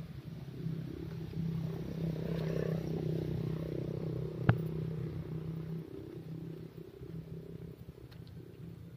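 A motor vehicle's engine running steadily, louder through the first half, then fading away after about six seconds. A single sharp click sounds about halfway through.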